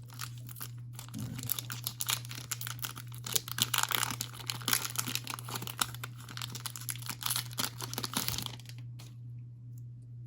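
Foil wrapper of a trading-card booster pack crinkling and tearing as it is carefully opened, a dense crackle that stops near the end, over a steady low hum.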